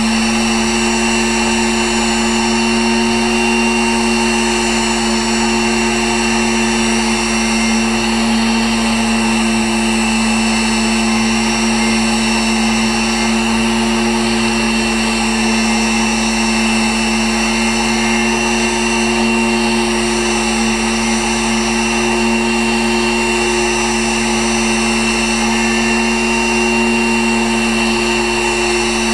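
Pantograph engraving machine's spindle motor running at a steady speed with a constant hum and whine while the cutter engraves lettering into wood.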